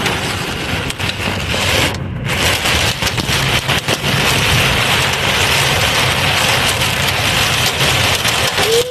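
Heavy rain pelting a moving car's roof and windshield, heard from inside the cabin, over the steady low drone of the engine and tyres on the wet road. The rain noise dips for a moment about two seconds in, as the car passes under an overpass.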